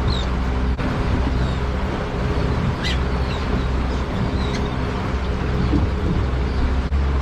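Small boat's outboard motor running steadily, with wind and water noise and short high calls from seabirds now and then.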